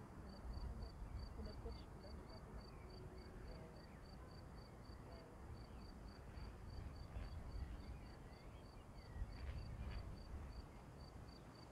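Faint insect chirping: a high-pitched pulse repeating evenly about four to five times a second, over a low, unsteady rumble.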